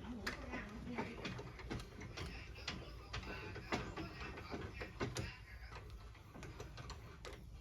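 Irregular light clicks and knocks, about two to three a second, thinning out near the end.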